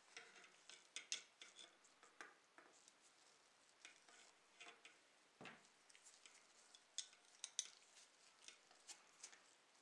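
Small plastic model-car parts clicking and tapping as gloved fingers press seats into the interior tub: faint, irregular ticks, with a few sharper clicks about a second in and again after about seven seconds.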